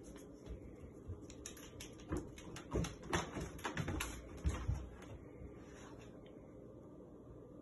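A quick run of sharp clicks and taps with a few duller thumps, lasting about three and a half seconds from a second or so in: a Belgian Malinois's claws and paws on a ceramic tile floor as the dog moves.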